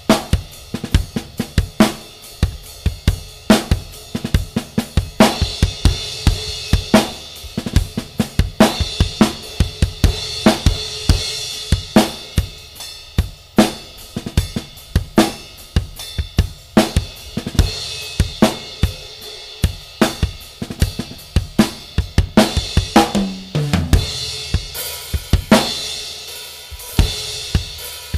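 Drum kit played in a steady groove of bass drum, snare and hi-hat, with an Armada Sparrow 16-inch crash cymbal struck repeatedly and ringing out in a bright wash. About three-quarters of the way through, a drum fill falls in pitch.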